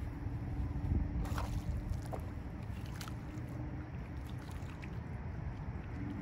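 Wind rumbling on the microphone, with a few small splashes and sloshes of water as a small largemouth bass is let go in the shallows; a faint steady hum runs underneath.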